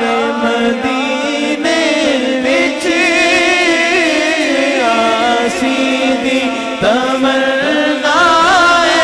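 A man singing a Punjabi naat into a microphone, drawing out long, wavering, ornamented notes, with short breaths between phrases.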